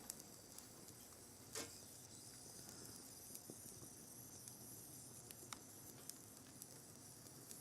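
Near silence: a faint steady hiss with a few small, irregular clicks and crackles, the clearest about a second and a half in.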